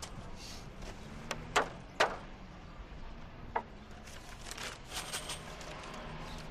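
Hammer driving nails into wood: a few sharp, irregular knocks, the two loudest about a second and a half and two seconds in, then fainter taps.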